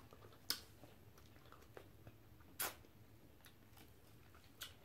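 Near silence in a small room, broken by a few brief, faint clicks and smacks of eating, the loudest about halfway through.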